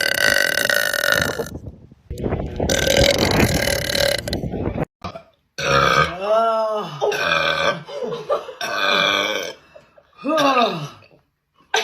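A woman burping loudly over and over: two long, drawn-out burps of a couple of seconds each, then several shorter ones whose pitch rises and falls.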